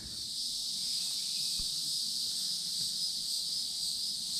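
Steady, high-pitched drone of an insect chorus, with a faint knock about a second and a half in.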